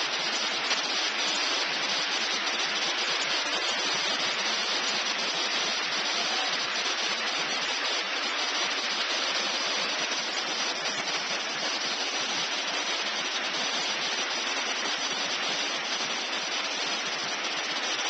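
A waterfall rushing steadily, falling water making an even noise without a break.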